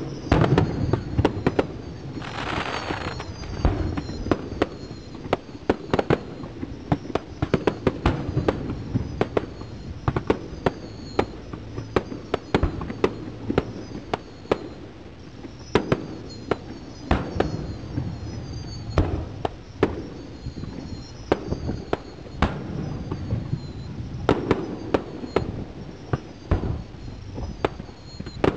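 Aerial fireworks bursting in rapid succession: many sharp bangs throughout, with repeated high whistles gliding down and up in pitch, and a hiss about two to three seconds in.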